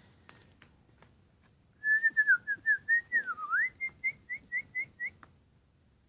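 A run of about fifteen short, clear whistled notes, about four a second, mostly on one high pitch, with one note in the middle swooping down and back up.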